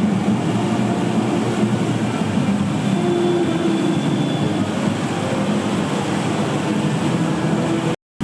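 Roller coaster train running along its steel track: a steady rumble.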